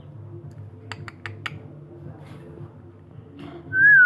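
Four quick, sharp clicks about a second in over a low steady hum, then near the end a loud, clear whistle that dips and then rises in pitch.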